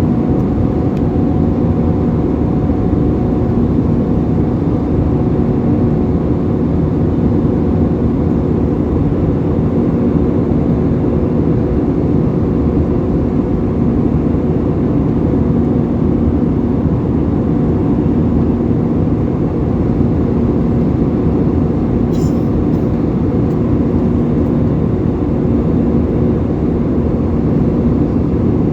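Steady cabin noise of an Airbus A320 in flight, heard from inside the passenger cabin: the jet engines and airflow make an even drone with a few steady hums in it. There is a faint tick about three-quarters of the way through.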